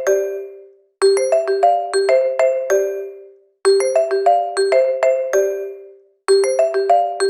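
Phone ringtone: a short marimba-like tune of about seven quick struck notes ending on a held note that dies away. It repeats about every two and a half seconds, with a brief silence between repeats.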